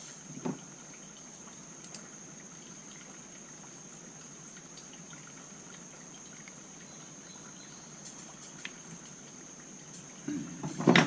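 Quiet steady hiss with a thin high-pitched whine, broken by a few faint clicks of small carburetor parts and a screw being handled, and a louder clatter in the last second.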